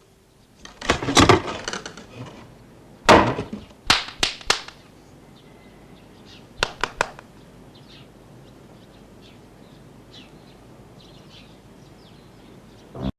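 Door sound effects: a door banging and rattling for about a second and a half, a single loud bang at about three seconds, then two runs of three sharp clicks. Faint high chirps like birdsong sit behind them.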